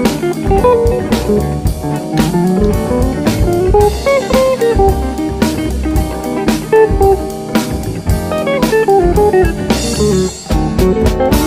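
Background music: plucked guitar melody running up and down in steps over a steady drum beat.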